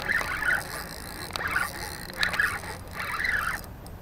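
Shimano Nasci 4000 spinning reel buzzing in short bursts about once a second, with a few clicks, under the pull of a hooked pompano.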